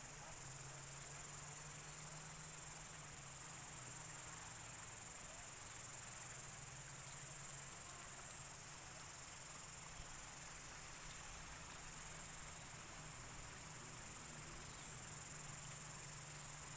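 Steady, high-pitched drone of insects in chorus, with a few faint scattered clicks.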